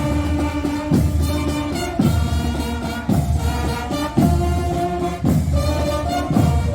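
Fanfare band playing: brass horns sounding held notes over a marching drum beat, with a heavy bass-drum stroke about once a second.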